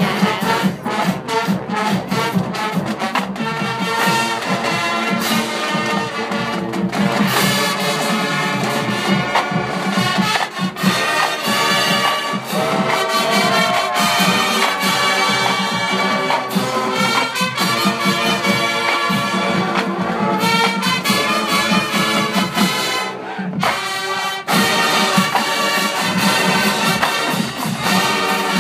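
Marching band playing, with brass carrying the tune over a steady beat. The music breaks off briefly about two-thirds of the way through, then comes back in.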